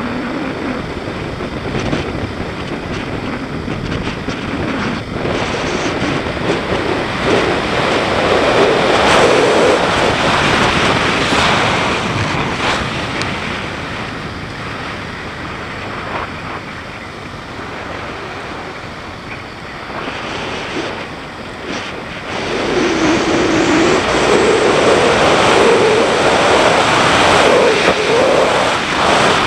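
BMW G650GS single-cylinder engine under way, its note rising and falling with the throttle, under heavy wind rush on the microphone. It eases off for a while in the middle, then picks up and runs louder near the end.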